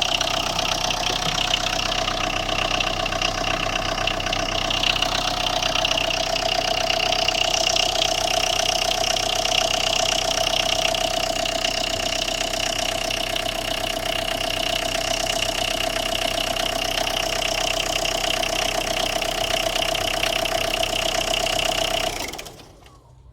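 Tata Indigo's diesel engine idling with a knock, which the mechanic traces to a blown 10-amp ECU fuse; it is switched off about 22 seconds in and the sound cuts off suddenly.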